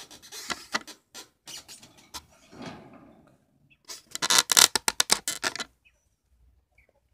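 Rustling and clicking in a wire bird cage's straw bedding as a toy candle is set down, with a dense burst of sharp scratchy clicks about four seconds in. A few faint chirps from small birds come near the end.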